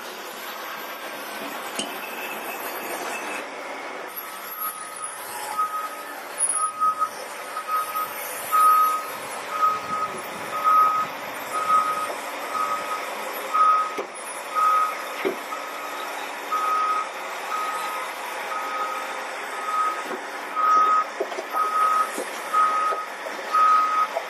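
A heavy vehicle's reversing alarm beeping at one steady pitch, about once a second, starting about five seconds in, over steady machinery noise.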